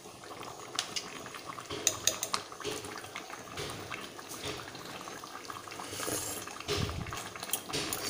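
A pot of jackfruit afritada simmering on the stove: the thick tomato sauce bubbling and popping in small scattered clicks, a little louder for a moment near the end.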